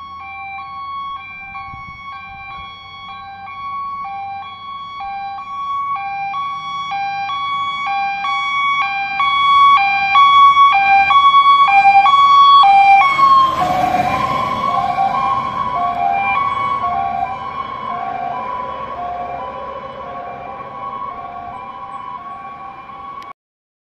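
Fire engine's two-tone siren switching between a high and a low note about twice a second, growing louder as the truck approaches. About 13 seconds in it passes close by with a rush of engine and tyre noise, and the siren drops in pitch and fades as it drives away, cutting off suddenly near the end.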